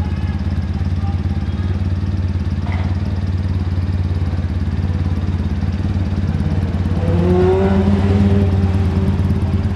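Triumph motorcycle engine idling steadily, with a brief rise in pitch and loudness about seven seconds in.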